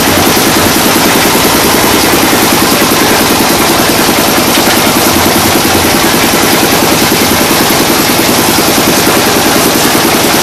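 The engine driving a brick-making machine runs steadily with a fast, even chugging pulse while the machine is washed out with water after production.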